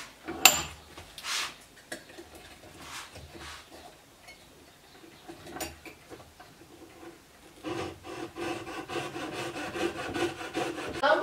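Coping saw cutting a small piece of wood by hand. There are a few scattered scrapes and knocks at first, then, about three-quarters of the way through, a fast, steady run of short sawing strokes.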